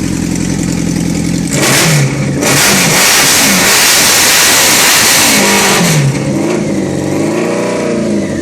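Honda CBX 750F's air-cooled inline-four idling through a custom-made 4-into-2 exhaust, then revved: a short blip, then the throttle held open for about three and a half seconds, loud, before it drops back and the idle wavers as it settles.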